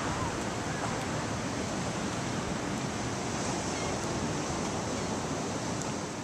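Steady rushing noise of ocean surf and wind, with no distinct events.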